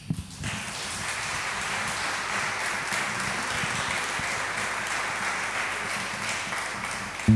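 Audience applauding steadily for several seconds, dying away near the end.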